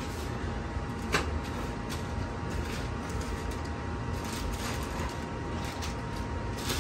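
Plastic packaging crinkling and parts being handled on a table, with a single knock about a second in, over a steady low background hum.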